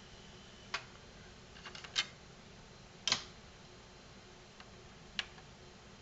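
A few sharp clicks, the loudest about three seconds in, from a Sony HCD-GRX10AV mini system being switched to its cassette function. Its tape deck is missing its drive belt, so the mechanism cannot engage.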